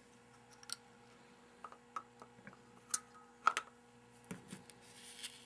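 Scattered light clicks and taps of a K-Rain irrigation valve's hard plastic parts as the bonnet and spring are fitted back onto the valve body by hand, over a faint steady hum.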